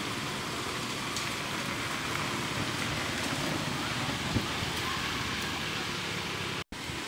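Steady hissing outdoor background noise in a forest, with one faint click about four seconds in. The sound cuts out for an instant near the end.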